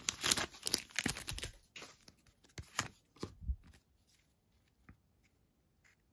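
Plastic wrapper of a Match Attax trading-card pack crinkling and tearing as it is ripped open, dense for about a second and a half, then a few scattered crinkles and clicks as the cards are drawn out, fading to near quiet after about three and a half seconds.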